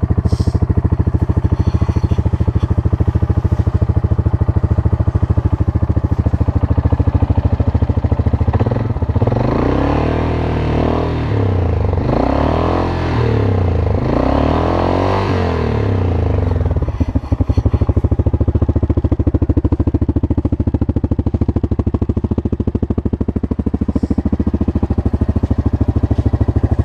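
Yamaha Grizzly ATV's single-cylinder engine running through an R2 Racing exhaust tip, idling with a steady thump. About nine seconds in, the engine speed rises and falls several times for about eight seconds, then it settles back to idle.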